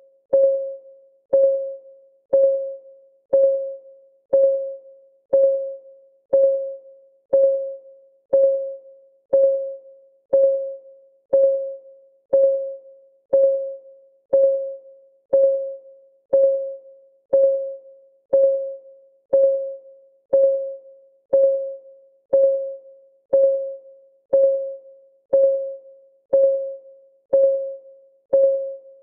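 Countdown timer's clock-ticking sound effect: one tick every second, steady and even, each a short mid-pitched tone that rings briefly and fades.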